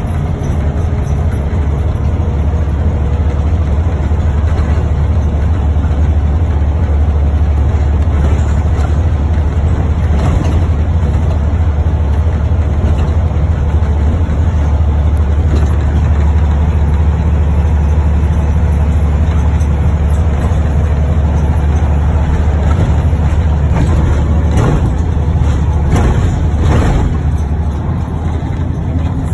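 Bus engine and running noise heard from inside the passenger cabin: a loud, steady low drone. A few seconds before the end the drone dips and there are a few short rattles.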